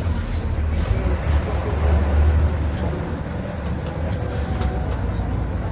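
MWM MaxxForce 7.12 TCE six-cylinder inline turbodiesel of an Agrale MA 17.0 bus running, heard from inside the bus as a deep, steady drone with a few light clicks and rattles. It swells slightly about two seconds in.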